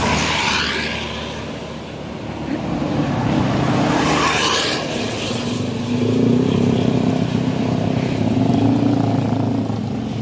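Road traffic passing close by: two vehicles rush past one after another, then an engine drones steadily from about six seconds in.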